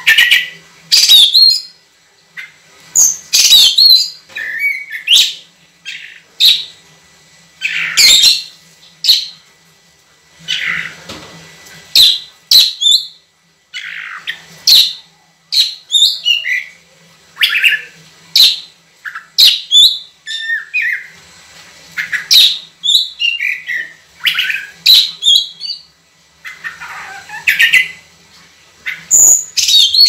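Oriental magpie-robin (kacer) singing loudly: a long run of short phrases of clear whistles mixed with harsher notes, following one another quickly with brief pauses between them.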